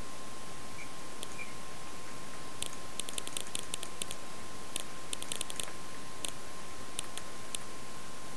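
A run of about twenty quick, uneven clicks from a computer's controls, starting a couple of seconds in and stopping near the end, over a steady hiss and a faint steady high tone.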